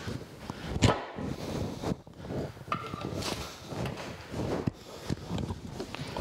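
Lifting strap being dragged out from around the cast-iron body of a cane mill, rubbing and swishing against the iron in short pulls, with a sharp knock about a second in.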